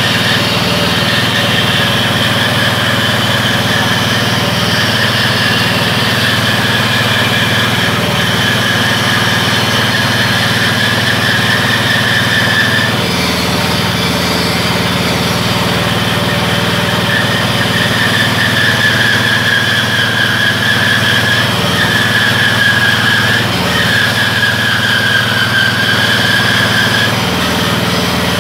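Small petrol engine running steadily, driving a homemade bandsaw whose blade is cutting a curved piece of wood. A high whine wavers over the engine, breaking off for a few seconds about halfway.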